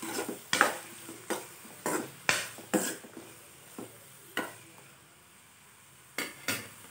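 Metal spoon stirring and scraping chopped onions, garlic and green chilli around a metal kadai, over a quiet sizzle of the onions frying in oil. Quick strokes come in the first three seconds, two more follow, then after a pause two more near the end.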